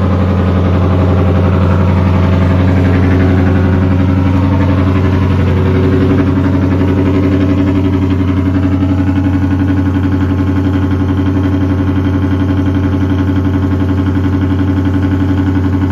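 Straight-piped Ford Mustang exhaust idling loudly with a deep, steady note. The idle is a little higher and fuller for the first few seconds, then drops and settles about six seconds in.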